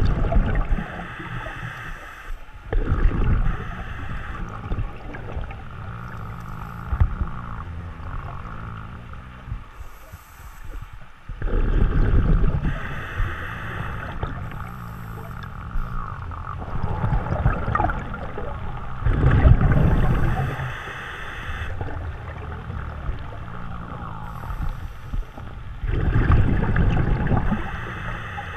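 Scuba diver breathing underwater through a regulator: a bubbling rush of exhaled air every few seconds, with quieter pauses between breaths.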